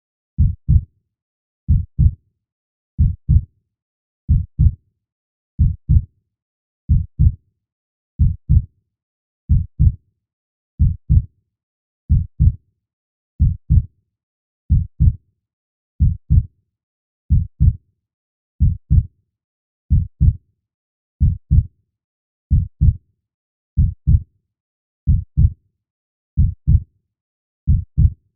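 Heartbeat: steady pairs of low thumps, lub-dub, about one pair every 1.3 seconds, with silence between.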